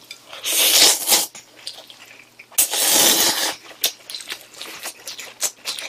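A person slurping cold buckwheat noodles (mul-makguksu) in two long, hissy slurps, about half a second in and again near three seconds, followed by wet chewing and lip-smacking clicks.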